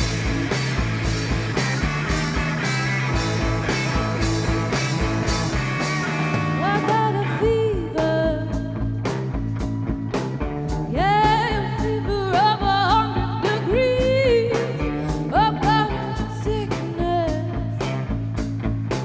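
Live rock band playing electric guitar, bass and drum kit to a steady beat, with a woman's lead vocal coming in about seven seconds in.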